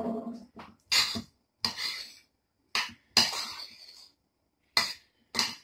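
Metal spoon scraping and clinking against a stainless steel frying pan as cooked rice is stirred, in about eight separate strokes.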